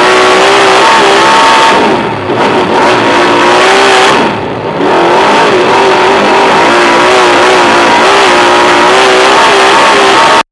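Speedway superstock's engine running hard at racing speed, heard from inside the cockpit. There are two brief drops in level, about two and four and a half seconds in, and the sound cuts off suddenly at the end.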